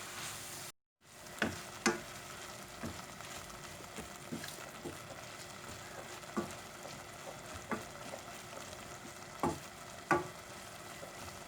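Shrimp, calamari and mushroom filling sizzling in a frying pan as it is stirred, with the utensil knocking against the pan now and then. There is a short break of silence just under a second in.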